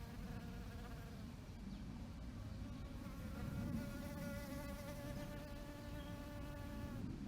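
Bees buzzing in flight, one passing briefly near the start and another holding close from about three seconds in before cutting off near the end, over a steady low rumble.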